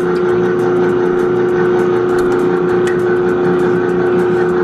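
Electric stand mixer with a wire bowl guard running steadily, its paddle beating a thick glue slime base in a metal bowl: a loud, even motor hum with one strong steady tone and occasional light ticks.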